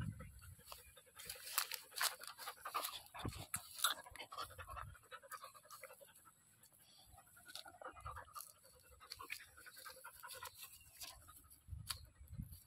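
Dog panting close up, with scrapes and sharp knocks as its fur and a hand rub against the phone's microphone.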